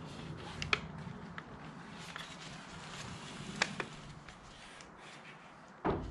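Faint handling of a hard plastic car radio fascia: a few short, sharp clicks and a dull thump near the end, over a low hum that fades out about two-thirds of the way through.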